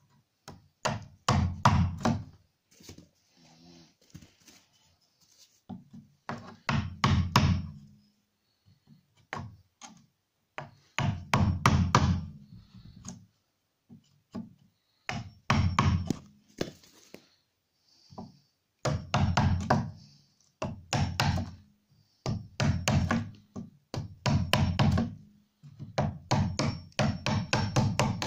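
Wood chisel being driven into a softwood frame upright with quick repeated blows, chopping out a notch. The blows come in about ten short bursts of several sharp knocks each, with brief pauses between.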